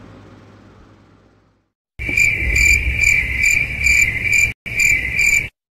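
Crickets chirping in a steady pulsing rhythm, about three chirps a second, starting about two seconds in and cutting off sharply near the end, after the faint tail of a previous sound dies away.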